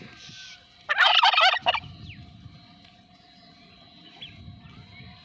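A male turkey gobbling once, a loud rapid warbling call of under a second, about a second in.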